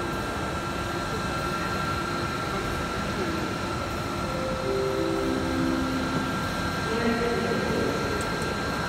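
Domino K600i digital inkjet label press running, the label web moving steadily over its rollers: an even mechanical running noise with a constant high whine, with distant voices in the background.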